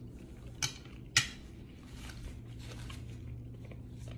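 A person biting and chewing food: two crisp crunches about half a second apart, the second louder, then soft chewing over a low steady hum.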